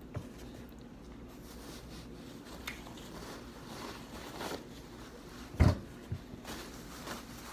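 Close-miked eating: quiet chewing and mouth sounds with a few light clicks of utensils against the bowl, and a sudden loud low thump a little over five and a half seconds in.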